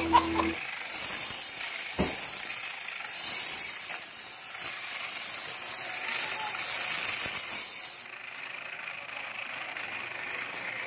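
Steel bolo blade being ground on a pedal-powered bicycle grinding wheel, a steady hissing grind, with one sharp knock about two seconds in. The grinding stops about eight seconds in, leaving a quieter mechanical noise.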